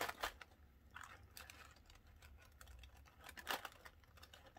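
Faint small clicks and soft rustling of hand-sewing: a needle with a thimble being pushed through stiff, glue-hardened layers of a fabric flower, with a sharper click about three and a half seconds in.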